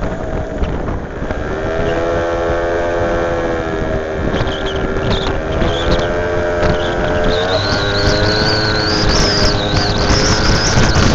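A scooter's small engine running under way, its note climbing as it picks up speed and shifting again about two-thirds of the way through. Wind rushes over the microphone and grows toward the end.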